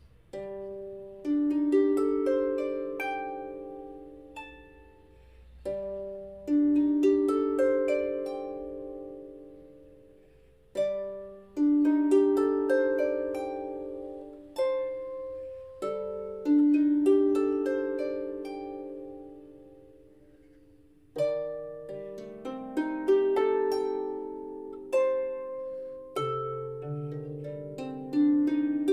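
Solo harp played slowly: phrases of plucked, arpeggiated notes that ring and die away, a new phrase starting about every five seconds. Deeper bass notes join near the end.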